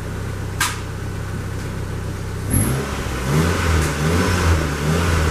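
Exhaust note of a Mitsubishi 4G18 1.6-litre four-cylinder engine heard at the tailpipe: idling steadily, then revved up about two and a half seconds in and held at higher revs that rise and fall. A single sharp click about half a second in.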